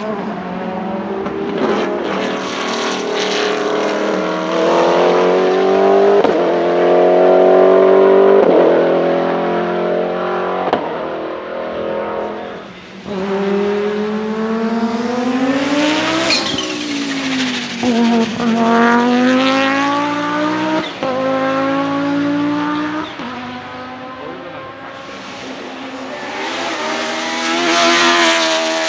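Race car engines in three clips one after another: a Saleen S7-R GT1's V8 revving through the gears, then an Audi S4 IMSA GTO's turbocharged five-cylinder accelerating and passing with a sharp rise and fall in pitch, then a BMW E36 race car with a Judd V8 accelerating.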